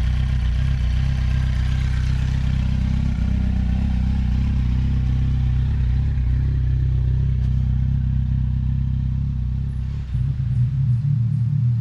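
2007 Kawasaki Z1000's inline-four engine running steadily at idle through freshly fitted DANMOTO Carbon GP aftermarket mufflers, with a deep, even exhaust note. About ten seconds in, the note dips briefly and then settles into a slightly different tone.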